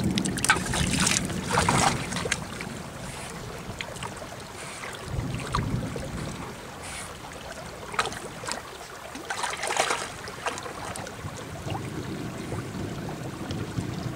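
Shallow stream water splashing as a dog wades and noses about on the stony bed, with water running steadily underneath. The splashes come in clusters, loudest about a second in and again around eight to ten seconds in.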